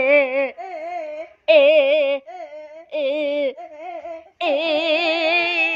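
A high voice singing in a sing-song way, with short notes that waver quickly in pitch and a longer held note near the end.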